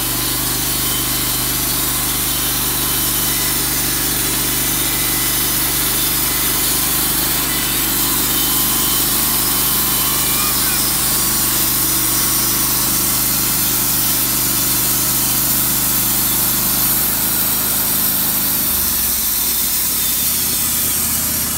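Wood-Mizer LT15 Wide portable bandsaw mill sawing hemlock: its engine runs steadily under load while the band blade cuts through the log with a loud, steady hiss. Near the end the engine pitch steps down twice as it slows.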